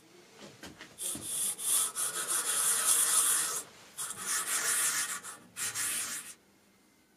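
Small abrasive block rubbed by hand across a metal surface plate, sanding down its marked high spots. It makes a scratchy hiss in three bouts: a long one starting about a second in, then two shorter ones.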